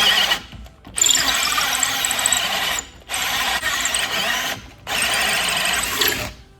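Power drill driving a hole saw through wood, running in bursts of one to two seconds with short pauses between, the cutting giving a high whine.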